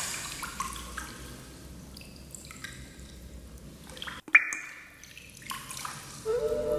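Water drops falling one by one, each a short ringing plink at a different pitch, with one sharp, louder drip about four seconds in. Sustained musical tones begin near the end.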